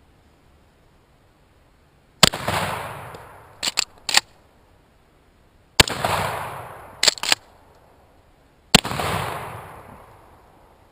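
Winchester Model 12 Heavy Duck 12-gauge pump shotgun fired three times, about three seconds apart, each shot dying away in a long echo. After the first two shots the slide is racked back and forward with a quick double clack to chamber the next shell. The third shot is a 3-inch turkey load.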